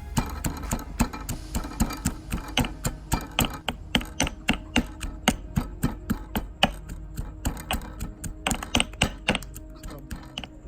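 Rapid, even knocking of sharp strikes, about four a second, stopping about a second before the end, over background music.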